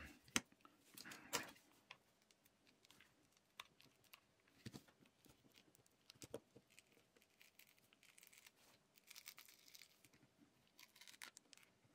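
Faint handling sounds of an iPhone 7 battery being lifted out of its housing and the leftover adhesive picked at with tweezers: scattered small clicks and rustles.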